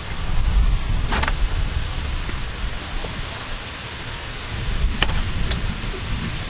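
Wind buffeting the microphone: an uneven low rumble over a steady hiss, with two short clicks, one about a second in and one near the end.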